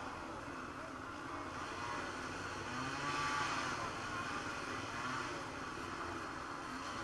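Road traffic: vehicles passing on a road, with one pass loudest about three seconds in.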